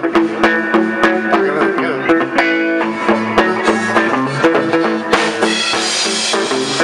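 Rock band playing live in a rehearsal room: a semi-hollow electric guitar and a bass over a drum kit keeping a steady beat, with a bright cymbal wash about five seconds in.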